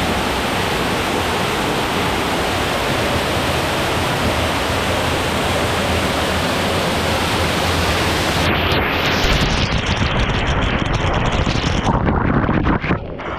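Waterfall pouring hard, a loud, steady rush of water. Its high hiss thins out over the last few seconds.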